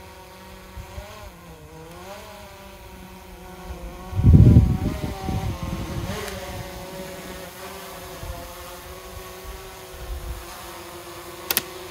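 Camera drone's propellers humming as it hovers, the pitch of the hum shifting as it maneuvers. A loud low rumble comes about four seconds in, and a sharp click near the end.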